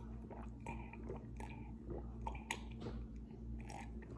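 Soft swallowing and small mouth clicks of a person drinking orange soda from a glass, a few quiet separate sounds over a faint low hum.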